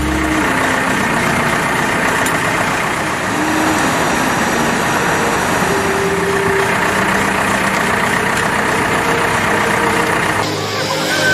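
Self-loading concrete mixer's engine running steadily under a dense mechanical noise, with a change in the sound about a second before the end.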